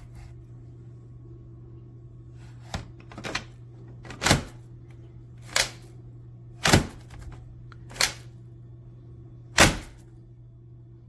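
A series of about seven sharp plastic clacks, spaced a second or so apart, over a steady low hum. They come from handling the Kenmore DU5092 upright vacuum's extension wand in its socket, a wand that will not lock in place.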